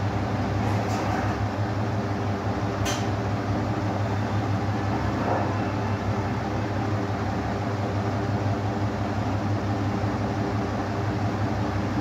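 Steady low hum of an idling vehicle engine, heard from inside the vehicle, with one sharp click about three seconds in.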